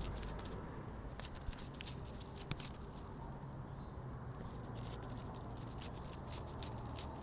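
Irregular light clicks and patters, scattered unevenly, over a steady low rumble: a sound effect meant as a butterfly's wings fluttering.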